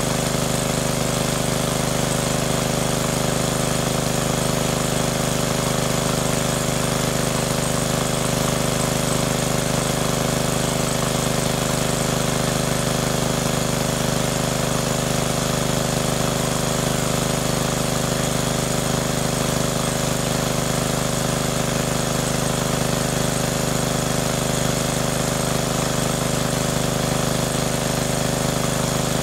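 Small engine-driven water pump running steadily at a constant speed.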